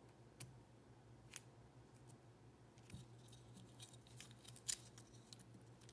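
Faint scattered clicks and light taps of small 3D-printed plastic finger parts being handled and fitted together. The clicks come more often in the second half, the loudest near the end, over a faint low hum.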